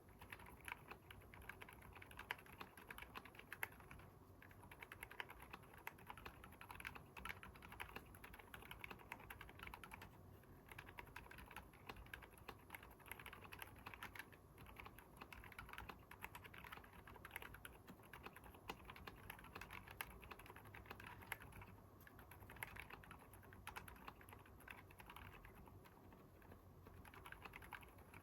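Quiet, continuous typing on a Keychron K10 aluminium hot-swap keyboard fitted with stock Haimu Seasalt silent switches, dampened with bottom-case foam and a Poron plate foam. The keystrokes come in a fast, steady stream with a few brief pauses.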